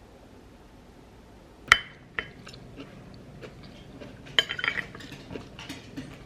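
Dishes and cutlery clinking: one sharp ringing clink just under two seconds in, then scattered lighter clinks and taps, with a busier run of them past the middle.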